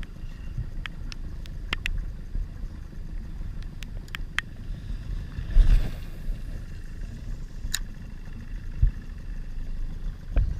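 Low rumble of wind on the camera microphone and water lapping around a small open boat on choppy water, with irregular sharp ticks and a short whoosh a little past halfway.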